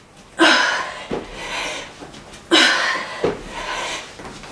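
A woman breathing hard during burpees: two loud panting breaths about two seconds apart, each starting suddenly, with soft thuds of hands and feet on the exercise mat between them.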